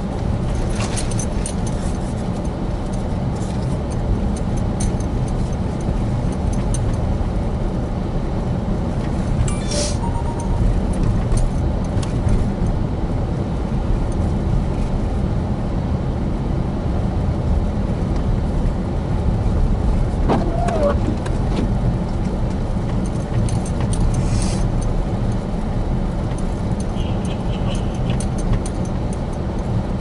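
Car driving on snow-covered streets, heard from inside the cabin: a steady low rumble of engine and tyres, with a few small clicks and rattles, about ten seconds in and again near twenty-five seconds.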